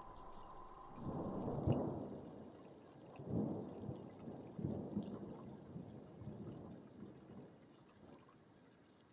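Thunder rumbling in several rolls: the loudest comes about a second and a half in, the later ones are weaker, and the rumbling fades away towards the end.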